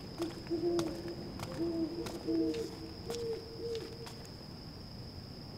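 An owl hooting, a run of short low hoots at two slightly different pitches lasting about four seconds. A faint steady high-pitched whine runs underneath.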